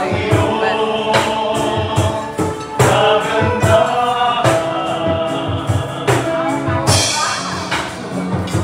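Singing cooks and waiters performing a song over music with a steady beat and percussion.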